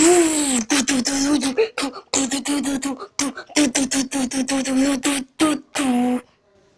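A person's voice making loud, rapid wordless mouth sounds like beatboxing, chopped into many short bursts on a steady pitch, stopping about six seconds in.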